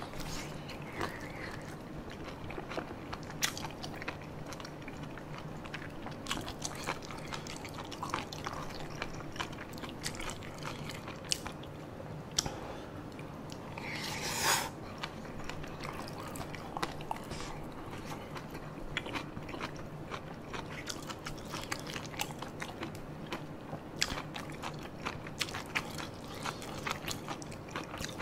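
Close-miked chewing of spicy tteokbokki and boneless chicken feet: wet mouth sounds and many short clicks. About halfway through comes a longer, louder slurp off the spoon.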